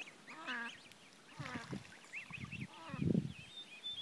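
A flock of ducks and geese calling on the water: repeated nasal quacks and honks over a run of high peeping calls, loudest about three seconds in.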